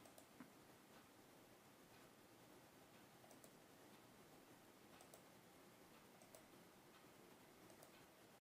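Near silence: faint steady hiss with about six faint, scattered clicks of a laptop's pointing-device button, the one just after the start the loudest.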